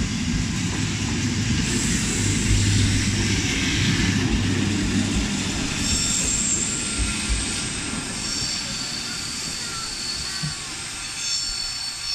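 CFL Class 2000 electric multiple unit running past at close range, its wheels rumbling over the rails, loudest about three seconds in. As it draws away it fades a little, with thin high squealing tones from the wheels.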